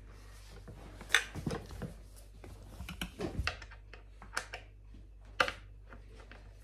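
Irregular sharp clicks and small metal knocks from a hand tool and bolts being worked into the metal tilt mechanism under a gaming office chair's seat, with a few duller handling thumps; the sharpest clicks come about a second in and again near the end.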